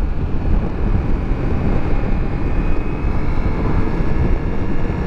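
2024 Ducati Multistrada V4S's V4 engine running under way and picking up speed, with a steady rush of wind and road noise over the microphone.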